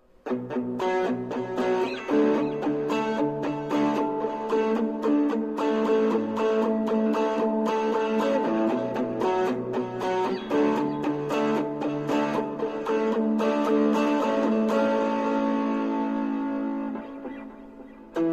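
Guitar played through an M-VAVE Pocket Combo: a run of picked notes and chords, the last chord ringing out and fading over the final few seconds.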